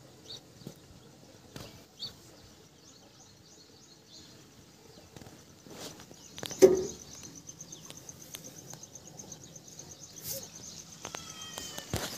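Outdoor background with a fast, even, high-pitched chirping that starts about halfway through, one sharp knock just past the middle, which is the loudest sound, and a short animal call near the end.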